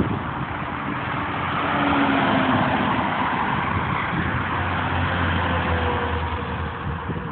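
Interstate highway traffic passing at speed: a steady rush of tyres and engines that swells about two seconds in. A box truck then drives close by with a low engine drone, its pitch falling as it passes.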